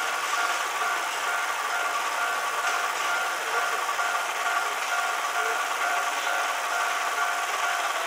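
Japanese railway level-crossing alarm ringing steadily, an electronic bell repeating at about two strokes a second: the crossing is closed for an approaching train. Steady street noise lies underneath.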